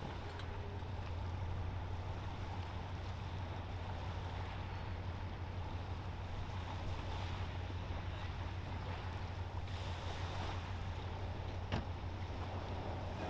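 Steady low engine drone of a large container ship and her escort tug passing close, over a constant rush of water and wind. One sharp click near the end.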